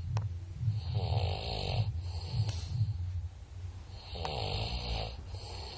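A sleeping person snoring, with several drawn-out noisy breaths one after another.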